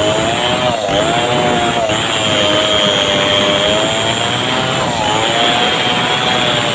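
Two-stroke chainsaw at full throttle, cutting into the trunk of a bendo tree. Its engine note dips briefly under load about a second in and again near five seconds.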